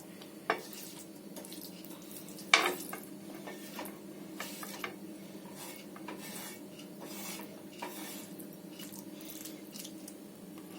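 Spoon scraping and clinking on a tawa as cooked tomato bhaji is dished out, with irregular light strokes and one sharper clack about two and a half seconds in.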